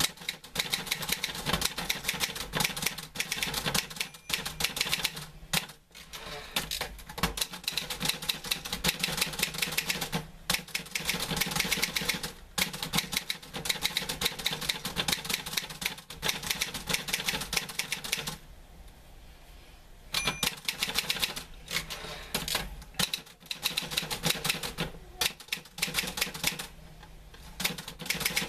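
Typewriter typing: keys striking in quick, dense runs. Near the two-thirds mark the typing stops for about two seconds, and it pauses briefly again near the end.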